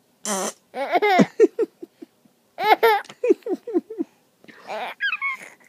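A baby laughing in two bouts of quick, falling "ha-ha-ha" pulses, each opening on a higher squeal, with a short fart noise just before the first bout.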